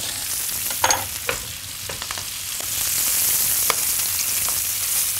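Herring fillets sizzling skin-side down in hot oil and butter in a frying pan, the sizzle swelling louder about three seconds in, with a few light clicks and taps.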